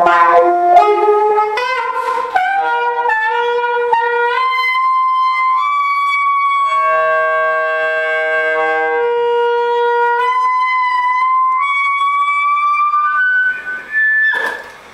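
Saxophone playing a closing phrase: quick notes, a rising run, then one long held note that slowly bends upward before stopping near the end.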